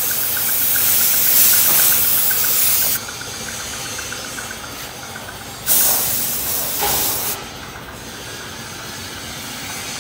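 Compressed-air paint spray gun hissing as it sprays paint. One long burst that cuts off suddenly about three seconds in, then a second, shorter burst of about a second and a half starting around six seconds in.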